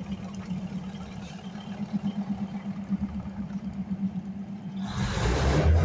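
Steady, pulsing hum of a diesel passenger train's engine idling. Near the end, a sudden loud rush of noise lasting about a second covers it.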